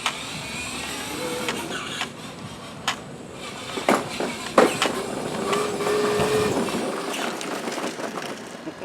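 Battery-powered ride-on toy car driving under remote control: electric motor whine and hard plastic wheels rolling and scraping over pavement, with several sharp clicks about two to four seconds in.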